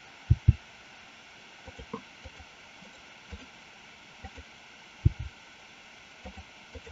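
Computer mouse and keyboard clicks, heard as scattered soft, low knocks over a steady faint hiss. There are two close together near the start, a few lighter ones, and the loudest about five seconds in.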